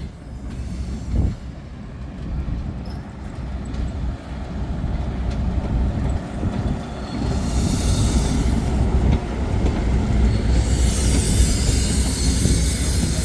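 The Cockle Train passing close by: a low rumble of locomotive and carriages on the rails that grows louder, with bursts of high hissing wheel squeal about seven seconds in and again from about ten and a half seconds.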